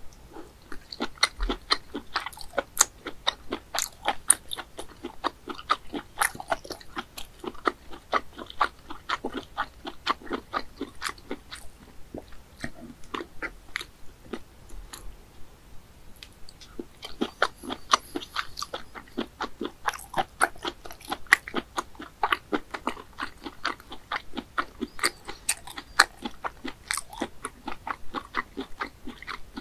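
Close-miked mouth chewing boiled land snail meat: a quick, dense run of wet clicks and small crunches, thinning out for a few seconds midway before picking up again.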